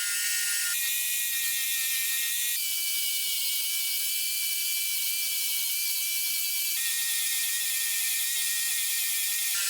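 Electric jigsaw running with a steady high whine as it cuts a thin wooden strip, the pitch of the whine changing abruptly a few times.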